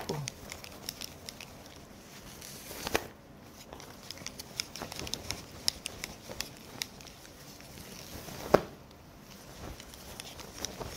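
Scattered light clicks and taps of small objects being handled, with two sharper knocks, about three seconds in and a little after eight seconds.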